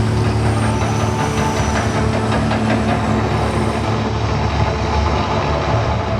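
Mirage volcano show erupting: a loud, continuous rumble and hiss over a steady low drone.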